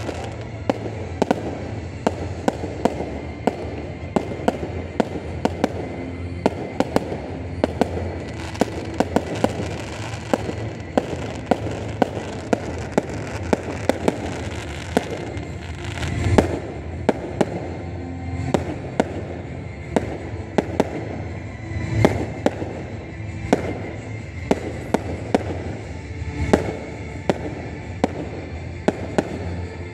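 Aerial fireworks going off in rapid succession: a steady stream of sharp bangs and crackles, two or three a second, with a few heavier bangs about halfway through and again near the end.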